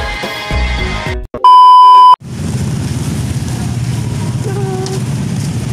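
Background music with a beat cuts off about a second in, followed by a very loud, steady 1 kHz beep lasting under a second. Then comes a steady low hum of street traffic with engines idling.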